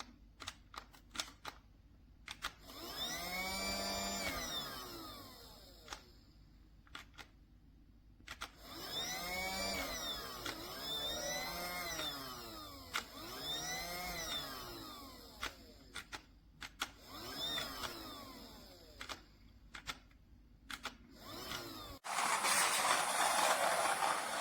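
Casdon toy Dyson cordless vacuum's small motor whirring in several short runs, each rising and then falling in pitch, with plastic clicks in between. A louder steady hiss takes over near the end.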